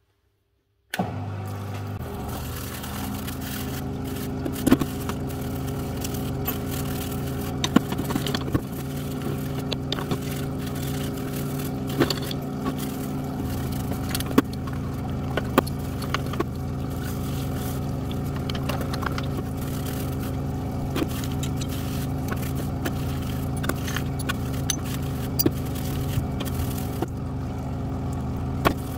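Parts-washing machine running with a steady hum, while metal tool parts clink and scrape against each other now and then as they are washed.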